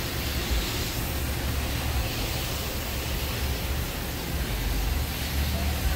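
Steady rushing noise with a low, uneven rumble beneath it.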